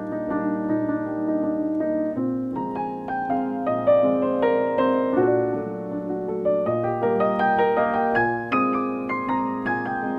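Piano music: a gentle melody of separate notes struck over low sustained notes.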